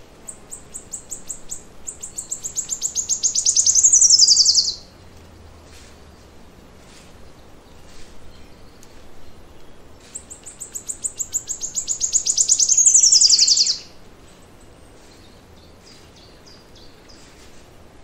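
A songbird singing twice, each song a run of high, quickly repeated notes that speeds up and grows louder, then ends in a falling flourish. Faint short chirps from other birds come between the two songs.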